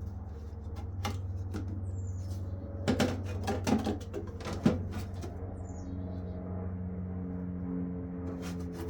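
Knocks and clunks of a replacement blower motor being handled and tried against its mounting, a few separate hits with the loudest about four and a half seconds in, over a steady low hum.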